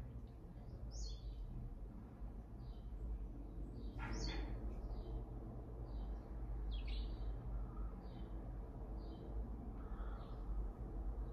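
Birds chirping: short high chirps about once a second, with a few longer calls that sweep down in pitch, over a low steady hum.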